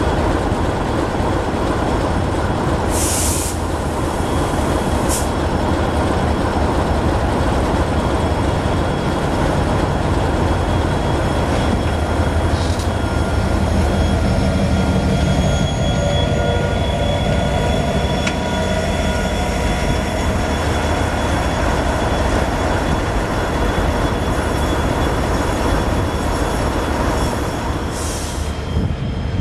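Diesel-electric locomotive running with a steady low rumble as it moves through the station, with thin squealing tones from the wheels and a few short hisses about three seconds in, about five seconds in and near the end.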